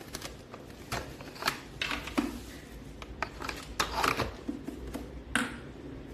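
Irregular plastic clicks and knocks from a Dyson cordless stick vacuum being handled while switched off, its body and filter cap knocking as the hand works around them, over a low steady hum.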